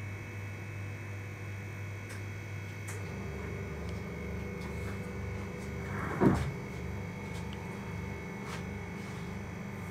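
Steady low hum with a faint high steady tone, and one short, loud knock about six seconds in, with a few faint clicks.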